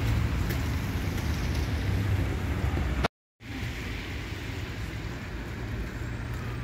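Street noise with wind buffeting the microphone and a low traffic rumble. About three seconds in, the sound cuts out completely for a moment and then returns a little quieter.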